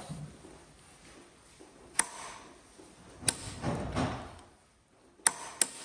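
A ratchet wrench with a long handle on the crankshaft bolt of a BMW N46 four-cylinder petrol engine, turning the engine over by hand: a few sharp metallic clicks, with a short rasping run of ratchet clicking about halfway through.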